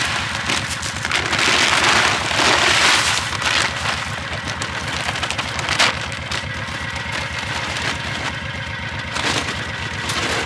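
Utility vehicle engine idling with a steady low pulse. Over it, during the first few seconds, come bursts of rustling, crunching noise, and a single sharp click a little before the middle.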